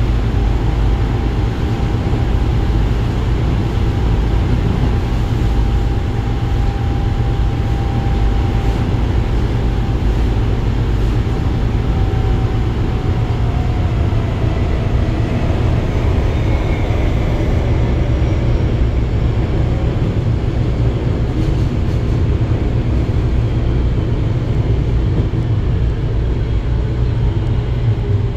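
Interior running sound of an Osaka Metro 22 series subway car: a loud, steady rumble of wheels and running gear, with a faint whine that slides down in pitch around the middle.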